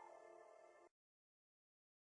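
Faint music with long held notes, cutting off abruptly about a second in, followed by dead silence.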